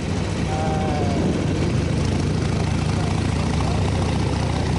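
Motorcycle engine running steadily while riding, with a steady rushing noise over it.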